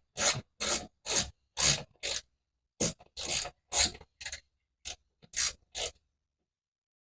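Ratchet wrench backing out a floorboard mounting bolt: a run of short rasping clicks, about two strokes a second, that stops about six seconds in.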